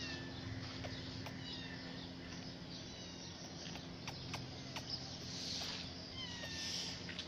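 Kittens mewing in short, high, falling calls, several times over a steady low hum and background noise.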